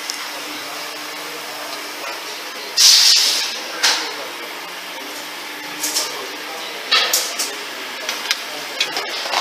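Pneumatic MCB rivet insertion machine cycling: a loud hiss of compressed air venting about three seconds in and a shorter one a second later, then a run of short clacks and brief hisses from its cylinders and valves, over a steady background hiss.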